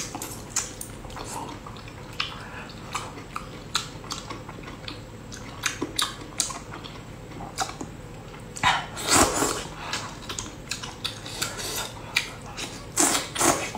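Wet chewing and lip-smacking clicks from eating soft octopus tentacles, with louder slurps about nine seconds in and again near the end.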